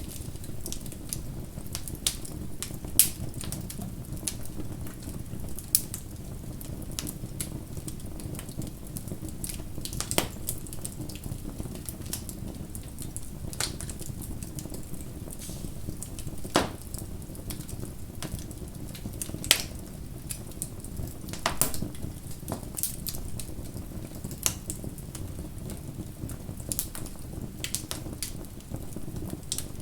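Campfire burning with a steady low rumble and irregular crackling, with a few louder wood pops scattered through.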